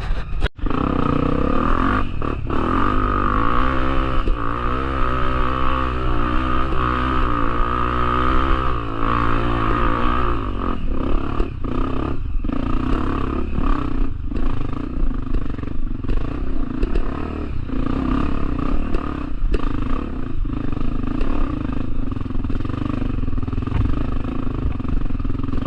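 Trail motorcycle engine running, its pitch rising and falling with the throttle for several seconds, then a rougher stretch of engine noise broken by repeated knocks and rattles.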